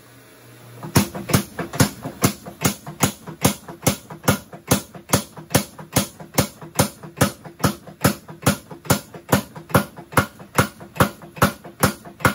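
Homemade 53 lb beam power hammer pounding a red-hot steel bar between its dies, starting about a second in and then striking steadily at about three blows a second.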